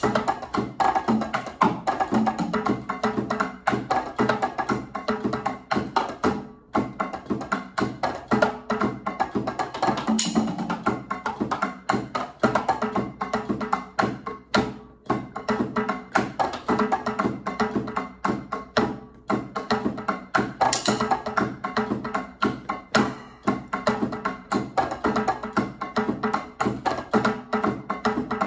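Electronic drum kit played with sticks in a busy, continuous Latin percussion groove.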